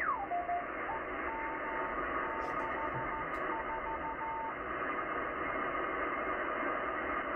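Yaesu FTdx10 shortwave transceiver in single sideband on the 10-metre beacon segment: steady band hiss, with a beacon's Morse code tone sliding down in pitch as the dial is tuned onto it. The tone then keys dashes and dots from about one second in until about four and a half seconds, after which only the hiss remains.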